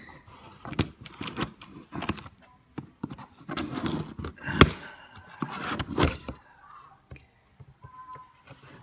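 Keyboard box packaging being handled while someone struggles to open it: irregular scraping, rustling and clicking, with a sharp click about four and a half seconds in, then quieter handling near the end.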